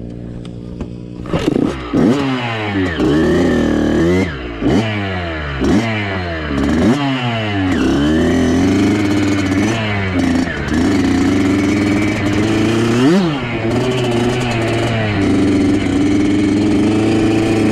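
Bored-out Kawasaki KX65 two-stroke dirt bike engine, idling briefly and then revved sharply up and down several times as the bike pulls away. It then runs at steady high revs, with one quick rev blip later on.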